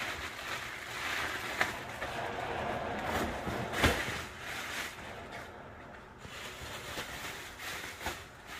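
Thin black plastic garbage bags rustling and crinkling as they are handled, with a single thump about four seconds in.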